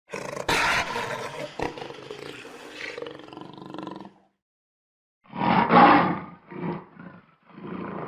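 Leopard growling and roaring: a long growl of about four seconds with two sharp clicks near its start, then after a short pause one loud roar followed by three shorter grunting calls.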